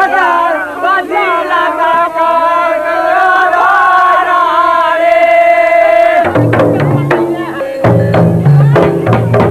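Village folk singing: voices hold long, wavering sung notes. About six seconds in, drums take over with a steady rhythm of alternating low and high drum strokes.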